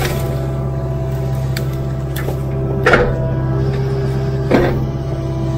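Kubota KX057-4 mini excavator's diesel engine running steadily under hydraulic load while the bucket clears brush and small trees. Two sharp cracks come about three and four and a half seconds in.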